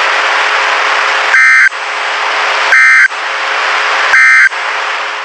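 Three short bursts of Emergency Alert System data tones, about a second and a half apart, over a steady radio hiss: the end-of-message code that closes the high wind warning broadcast.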